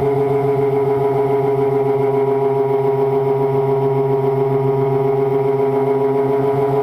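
Homemade RC plane's motor and propeller running steadily in flight, heard from the phone mounted on the plane: an even, unchanging drone at cruise throttle.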